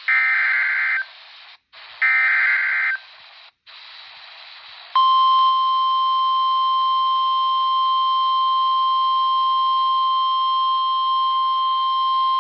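NOAA Weather Radio emergency alert on a RadioShack 12-254 weather radio: two one-second bursts of screechy SAME digital header data with radio static between them. About five seconds in, the steady 1050 Hz warning alarm tone starts and holds.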